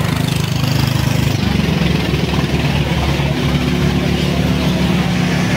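Fire truck's engine idling close by, with a steady low hum; its note changes about a second in.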